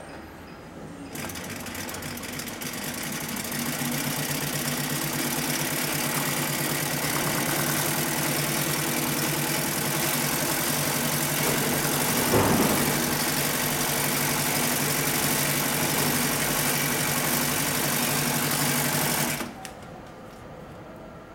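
HighTex 74400 industrial triple-feed (walking-foot) flatbed lockstitch sewing machine sewing heavy tent fabric: it starts about a second in, picks up speed over the next few seconds, runs at a steady speed with a brief louder moment about halfway, and stops suddenly near the end.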